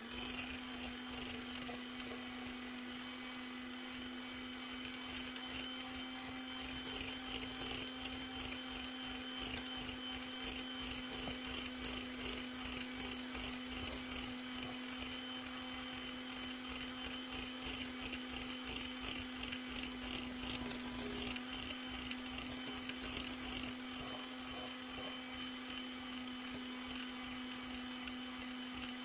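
Electric hand mixer switched on and running at a steady speed, its beaters whisking egg whites for meringue.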